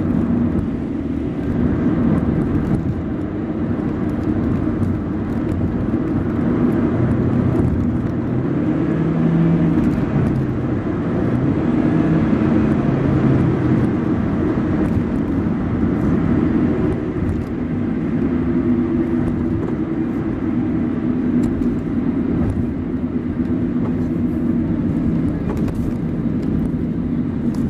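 Car engine and road noise heard from inside the cabin while driving at moderate speed, a steady low rumble whose engine note shifts a little as the speed changes.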